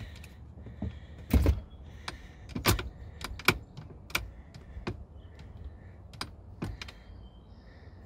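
About a dozen sharp, irregular clicks and knocks from a Jeep Grand Cherokee WJ steering column's tilt mechanism as the rebuilt tilt lever is worked, the mechanism latching and releasing.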